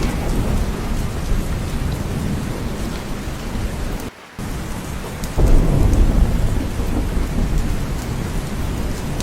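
Steady heavy rain with low rumbling thunder. The sound cuts out for a moment about four seconds in, then comes back with a louder, deeper rumble of thunder.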